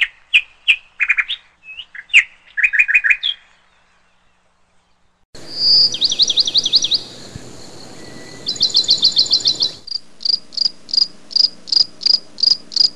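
Small birds chirping: a few scattered short chirps, then about two seconds of quiet. After that come fast trilling calls and a run of evenly repeated high chirps, about three a second, near the end.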